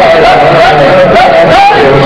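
Devotional zikr singing: a loud voice sings a wavering, ornamented melody over a lower repeating chant or drone.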